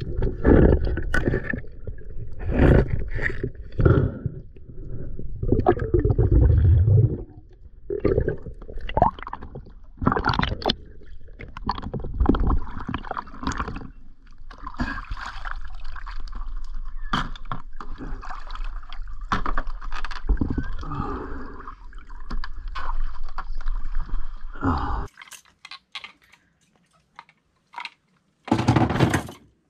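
Water gurgling and sloshing picked up by an action camera underwater and at the waterline beside a boat hull, with irregular knocks and handling bumps. It cuts off abruptly near the end, leaving a few faint clicks and one short loud burst.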